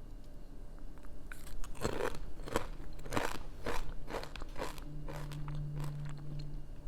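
Someone biting into and chewing crunchy fried cornflakes chivda (cornflakes, peanuts and flattened rice), with a series of sharp crunches.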